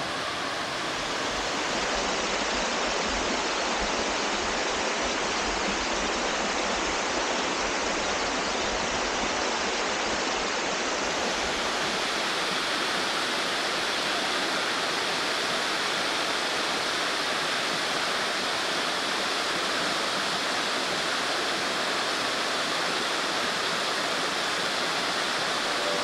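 Water of the hot-spring-fed Kamuiwakka River rushing steadily down a small waterfall cascade over rock.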